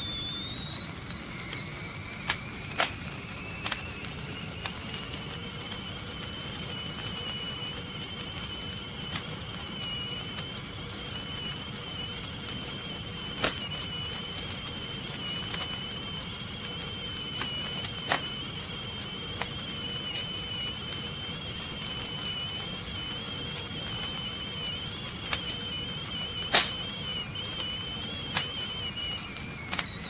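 Stovetop tea kettle whistling at the boil: the whistle climbs in pitch over the first few seconds, then holds a wavering high note with a fainter lower tone beneath it, and dies away with a falling pitch near the end. A steady hiss and a few sharp clicks run underneath.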